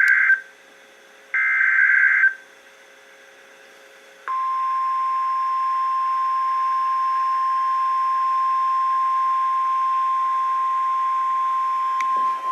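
NOAA Weather Radio emergency alert: SAME header data bursts, one ending just after the start and another about a second later, each about a second of buzzing digital noise. After a short quiet gap comes the steady single-pitch warning alarm tone, held for about eight seconds, which marks the start of a warning broadcast.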